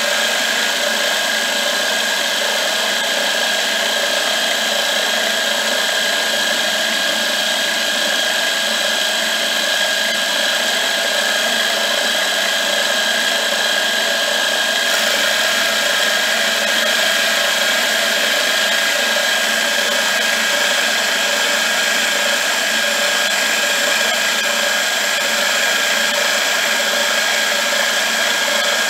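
Milling machine running with an end mill cutting a curved slot in a plate on a rotary table: a steady machine whine with continuous cutting noise.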